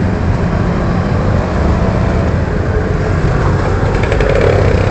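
Motorcycle and car traffic driving through an underpass: engines running with steady low noise, with a few faint clicks near the end.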